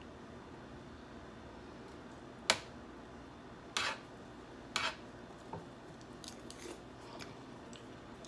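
Close-up eating and food-handling sounds: a sharp click about two and a half seconds in, then two short crackles about a second apart, followed by a few faint clicks and smacks.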